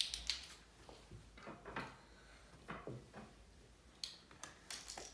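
Small plastic toy pieces being handled and set down on a wooden stool: a few light clicks and taps, the sharpest right at the start.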